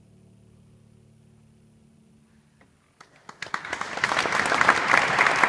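The choir's last held chord dies away faintly in the church's reverberation; then, about three seconds in, the audience starts applauding and the clapping quickly swells to full applause.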